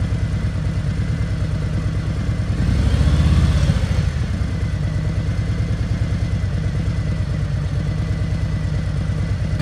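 Harley-Davidson Road Glide's V-twin engine running at a lumpy idle, revved once briefly about three seconds in, then settling back to idle.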